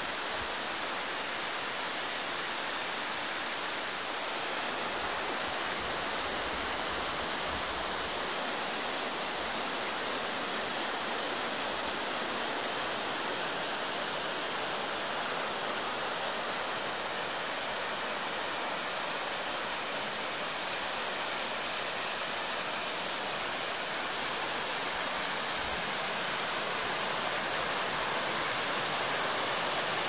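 Steady rushing of a waterfall and its mountain stream, an even, unbroken wash of water noise. One short click sounds about twenty seconds in.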